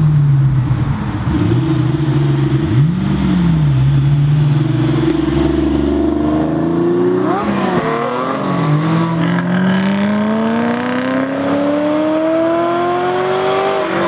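TVR Tuscan Mk1's straight-six through a decatted Carbon Can exhaust, loud. It rolls up at a steady low note with a quick throttle blip about three seconds in, then passes and accelerates hard away, its pitch climbing steadily for the last several seconds.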